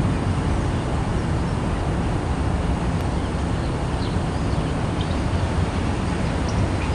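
Steady low rumble of outdoor background noise, with a few faint, short, high chirps over it.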